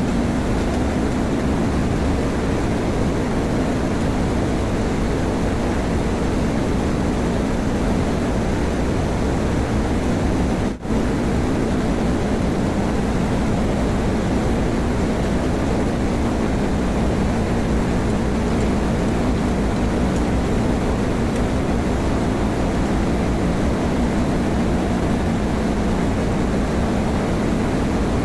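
Ship's engine-room machinery running: a loud, steady din with a low hum, which cuts out for an instant about eleven seconds in.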